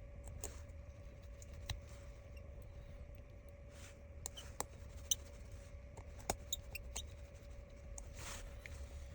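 Faint, scattered light clicks and taps from small tools and phone parts being handled, with a couple of brief scrapes, over a steady low hum.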